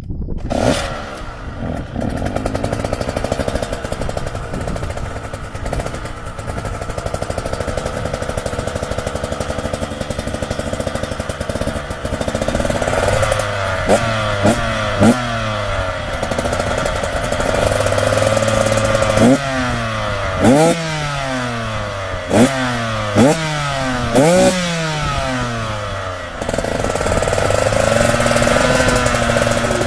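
Two-stroke motocross bike engine running, steady at first, then revved hard in a series of quick rising sweeps that each drop off sharply as it shifts up through the gears.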